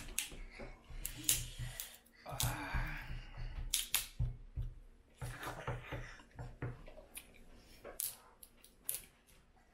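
Cajun-boiled crawfish shells cracking and snapping as they are peeled by hand: a run of sharp irregular clicks, with a short rustling stretch about two seconds in and a few dull knocks.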